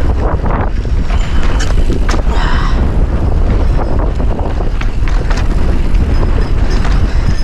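Mountain bike riding down a rocky trail: steady wind rumble on the action camera's microphone, with frequent rattles and knocks from the bike and tyres over rock.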